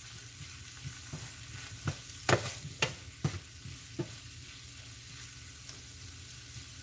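Wooden spatula stirring broccoli and potatoes in a stainless steel frying pan over a steady sizzle, with several sharp knocks and scrapes of the spatula against the pan between about two and four seconds in.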